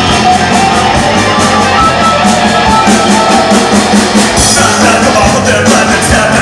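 Live rock band playing loud: electric guitars, bass guitar and drums, with a steady beat and the cymbals getting brighter about two-thirds of the way through.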